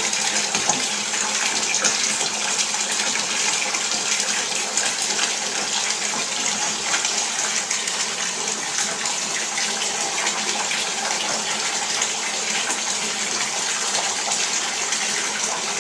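Water running steadily from a tap into a bathtub during a dog's bath.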